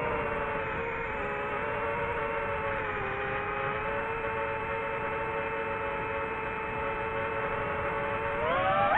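DJI FPV drone's motors and propellers whining at a steady pitch, dipping slightly about three seconds in, then rising sharply near the end as they spin up.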